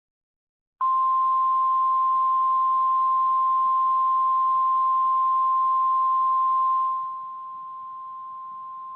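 NOAA Weather Radio warning alarm tone: a single steady 1050 Hz tone sent to switch on weather alert receivers, here played as the weekly test. It starts abruptly about a second in and drops in loudness about seven seconds in, with a light hiss of the broadcast behind it.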